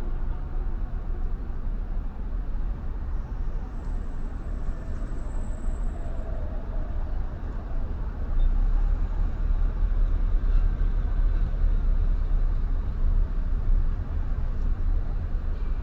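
Steady low road rumble of a car driving along a city street, tyre and traffic noise with no clear events, a little louder from about eight seconds in.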